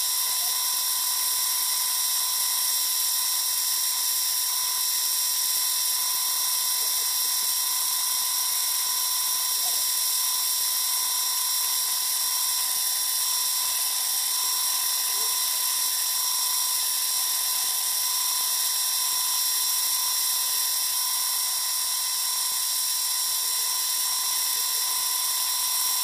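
Bench drill press spinning a polishing pad, with a steady, unbroken high-pitched whine that holds several fixed tones, while a stone is held against the pad to polish it.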